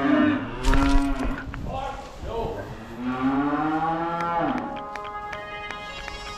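Cattle mooing: a call at the start, a short one about a second in, and one long moo about three seconds in.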